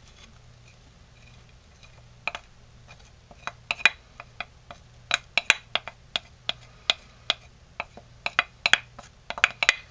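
Wooden spoon clicking and scraping against a ceramic plate and the rim of a metal cooking pot as shredded cheese is pushed off the plate. Irregular sharp clicks come more often in the second half.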